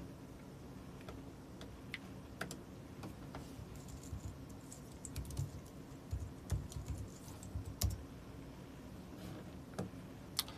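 Faint, irregular typing and clicking on a computer keyboard, with a few soft low thumps in the middle.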